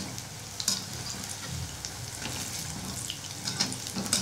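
Wheat-flour bondas deep-frying in hot oil in a kadai: a steady sizzle with scattered sharp crackles, while they are turned over with a perforated ladle.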